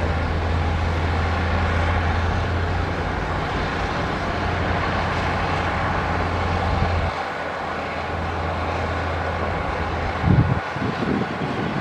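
Diesel engine of heavy earthmoving machinery running, with a steady low drone that drops away about seven seconds in. A brief louder rumble comes near the end.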